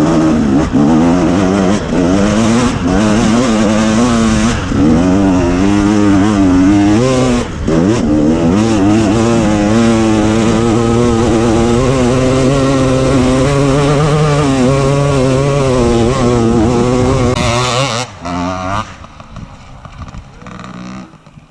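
2017 KTM 250 EXC two-stroke enduro engine running under throttle, its pitch wavering up and down as the rider works the throttle, with a brief easing-off about seven seconds in. Near the end it drops away sharply to a much quieter level.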